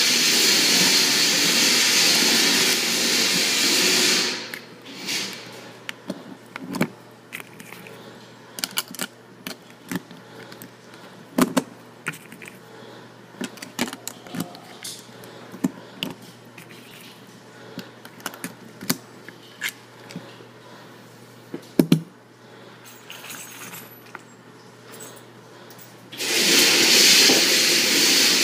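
A loud, steady rushing noise that cuts off about four seconds in. Then a long run of irregular sharp clicks and knocks, several of them loud. The rushing comes back near the end.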